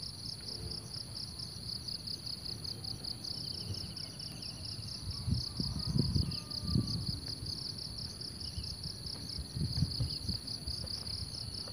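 Insects calling in a steady, high-pitched, rapidly pulsing chorus. A brief faint trill comes about a third of the way in, and low rumbles come twice, around the middle and near the end.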